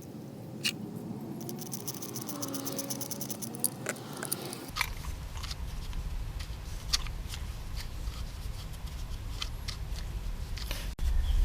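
Scattered small clicks, taps and snips of hands working on a small-engine recoil starter assembly and its pull cord, with a low steady hum coming in about halfway through.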